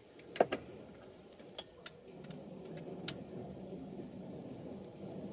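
Ratchet wrench clicking as alternator mounting bolts are backed out, with a few sharp metallic clinks of tools against metal, the loudest about half a second in.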